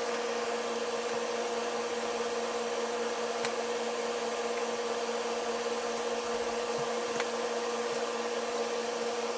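Small DC motor of a homemade toy car running steadily at constant speed, a level hum over a wide hiss.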